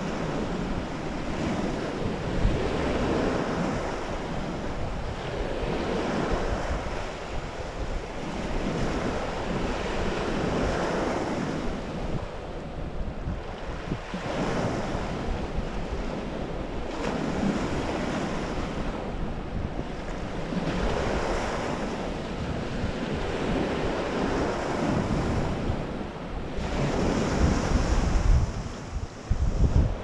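Lake waves breaking and washing up a stony shore, surging every few seconds. Wind buffets the microphone with a low rumble, heaviest near the end.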